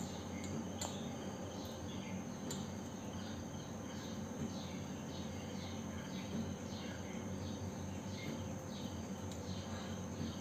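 Background chirping, short high chirps repeating about twice a second, over a steady low hum, with a few faint clicks near the start.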